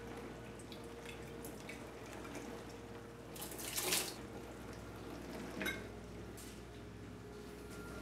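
Water splashing out in one brief rush about halfway through, the rinse water from wetting a pour-over paper filter being tipped away, over a steady faint watery hiss with drips. A short clink follows a moment later.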